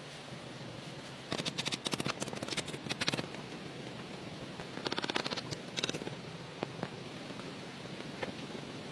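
Two bursts of rapid, rattling clicks, each lasting a second or two, over a steady background hiss, with a few single ticks near the end.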